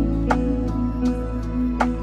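Lofi hip hop background music: a mellow beat with a deep bass, soft held chords and steady drum hits.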